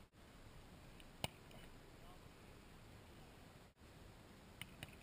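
Near silence: faint outdoor background with one sharp click about a second in and a few light ticks near the end. The sound cuts out completely for an instant twice.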